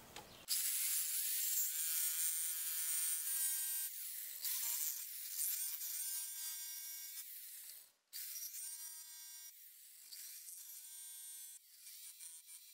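Corded jigsaw running and cutting the end of an ash canoe gunwale strip, a thin high motor whine whose pitch wavers as the blade works. It cuts out abruptly about eight seconds in, then runs again.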